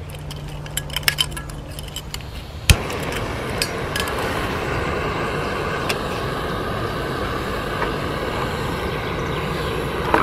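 Screw-on gas canister camping stove being lit: a few small clicks, then one sharp click under three seconds in, after which the burner runs with a steady hiss.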